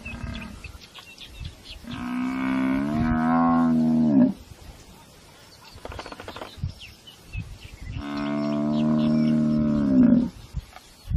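Cape buffalo bellowing twice, each a long, low moan of about two seconds that sags in pitch as it ends: the distress call of a downed buffalo being eaten alive by spotted hyenas.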